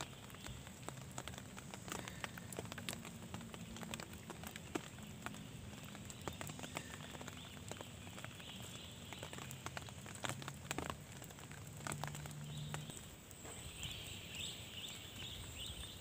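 Rain falling on forest foliage and ground, heard as many separate drops ticking irregularly.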